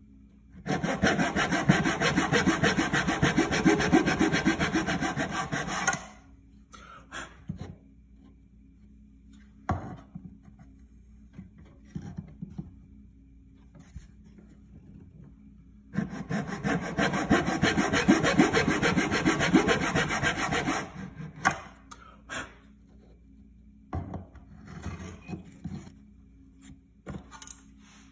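Fret saw cutting fret slots across a ukulele fretboard held in a slotting jig: two bouts of quick back-and-forth sawing strokes, each about five seconds long, with light knocks and clicks in between.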